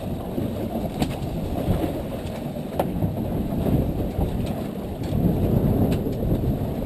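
Wind buffeting the microphone aboard a fishing boat at sea: a steady low rumble, with a couple of faint knocks about one and three seconds in.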